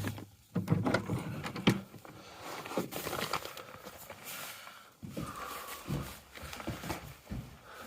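Scattered light knocks, clicks and rustling of things being handled inside a small hut.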